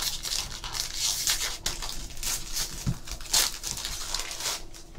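Foil wrapper of a trading-card jumbo pack being torn open and crinkled by hand, a run of sharp crackles with the loudest bursts about a second and a half and three and a half seconds in, thinning out near the end.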